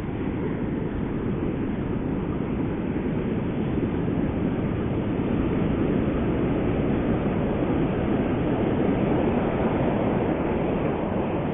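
Steady roar of ocean surf breaking on a beach, an even rushing noise with no distinct events.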